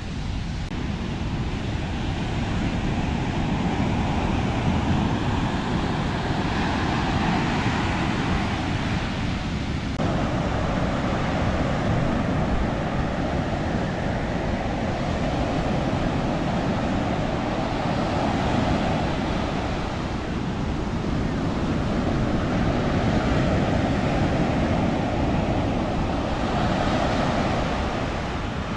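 Ocean surf breaking on a sandy beach, a continuous wash that swells and eases every few seconds, with wind buffeting the microphone.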